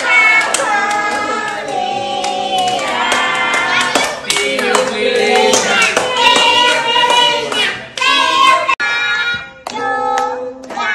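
Music with singing, and hands clapping along.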